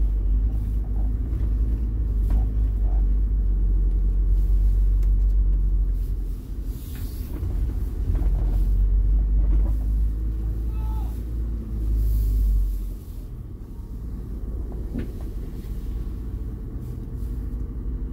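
Camping-car driving across a port quay, its engine and tyre rumble heard from inside the cab; the rumble is loud for the first dozen seconds and settles to a quieter, steady running about 13 seconds in.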